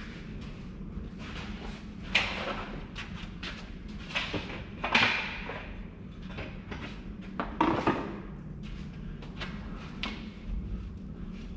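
A bricklayer's footsteps and the handling of tools and bricks: irregular knocks, bumps and scrapes, loudest about five and eight seconds in.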